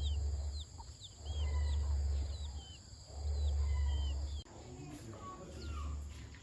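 Small birds chirping repeatedly in short, rising and falling calls over a low rumble that surges and drops away every second or so.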